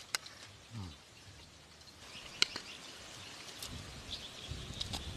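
A few sharp, isolated clicks over quiet outdoor ambience, with faint bird chirps in the background. There is a short, low, falling hum about a second in.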